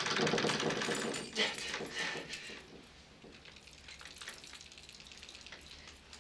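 A bunch of keys rattling and clinking in quick, dense clicks as they are picked up off the floor, with a couple of sharper clacks about one and two seconds in, then only faint scattered clicks.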